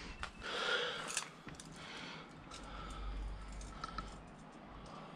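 Faint movement noise: scattered small clicks and rustling as a person moves about.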